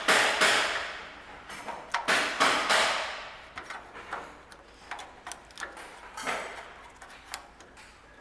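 Hands handling small parts and tools: a run of knocks, clatters and scrapes, loudest near the start and around two seconds in, then lighter clicks and taps.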